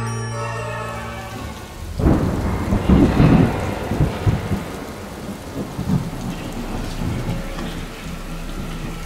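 Thunder: a sudden loud crack about two seconds in that rolls on in several rumbles for a couple of seconds, then steady rain falling. The music before it fades out in the first second or so.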